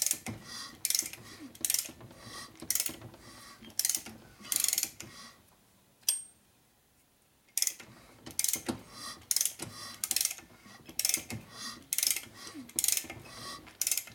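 Ratchet wrench clicking in short repeated strokes, roughly one or two a second, as it turns a Harley-Davidson Shovelhead V-twin over by hand against valve spring tension. There is a quiet pause of about two seconds near the middle, broken by one sharp click.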